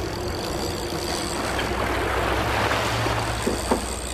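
Boat engine running with a steady low hum under wind and water noise, with one sharp knock near the end.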